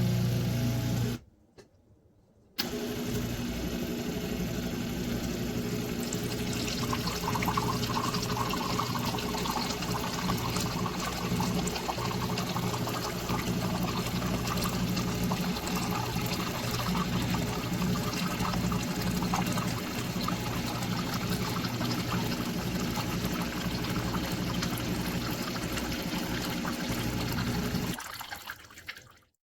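De'Longhi TrueBrew coffee maker brewing: a steady pump hum under the sound of water running and trickling. It starts a couple of seconds in after a short break and fades out near the end.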